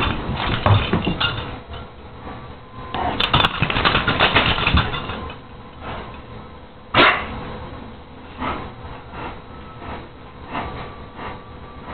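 Greyhound playing: scuffling and knocking strokes, one sharp loud sound about seven seconds in, then the dog panting in soft, quick, even breaths.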